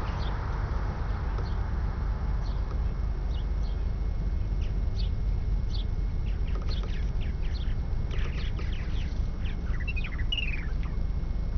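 Small birds chirping: short, quick, falling calls, scattered at first and coming thick from about eight to eleven seconds in, over a steady low rumble.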